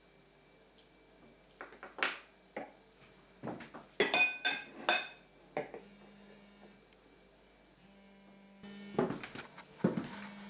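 Glasses, plates and cutlery being set down on a table: a run of light clinks and knocks, with a cluster of ringing glass-and-metal clinks about four seconds in and another group of knocks near the end.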